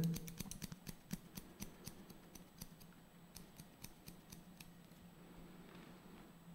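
Hairdressing scissors snipping through a combed-out section of hair: a quick run of faint, crisp clicks, about four a second, that thins out and stops after about four seconds.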